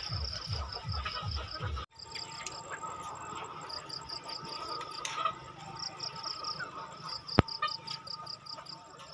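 Insects chirping in rapid, even pulses against the evening woods. For the first two seconds a low rhythmic music beat plays over them, then cuts off abruptly. A single sharp click comes about seven seconds in.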